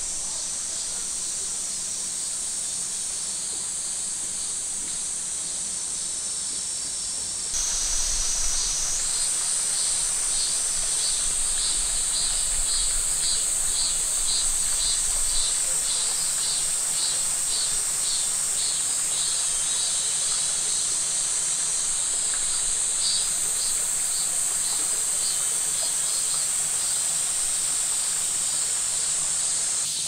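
Forest ambience dominated by a steady, high-pitched insect chorus. After a few seconds it gets louder, and a fast pulsing insect call joins for several seconds.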